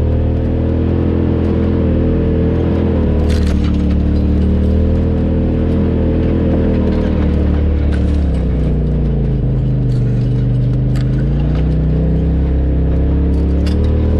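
Polaris RZR XP 4 Turbo S side-by-side's turbocharged engine running steadily at low trail speed. Its pitch dips for a few seconds past the middle and then comes back up. A few sharp clicks and ticks sound over it.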